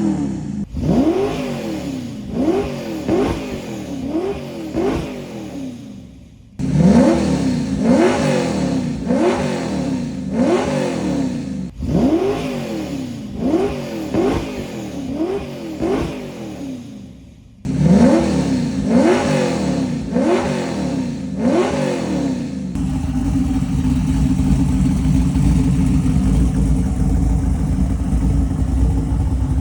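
Side-exit exhaust of a 363 cubic-inch stroker V8 with an X-pipe and Borla mufflers, revved in rapid throttle blips, each a quick rise and fall in pitch about one every three-quarters of a second. The blips come in several runs that start abruptly. Near the end the engine settles into a steady, lumpy idle.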